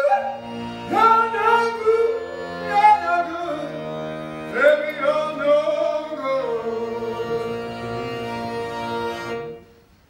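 Piano accordion holding sustained chords under a singing voice that slides up into its notes with a wavering vibrato. Both stop together shortly before the end.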